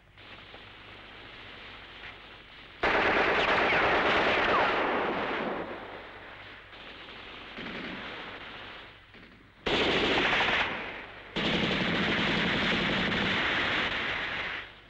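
Automatic gunfire in long bursts: moderate at first, then loud bursts start suddenly about three seconds in, again near ten seconds, and in a long stretch from about eleven seconds.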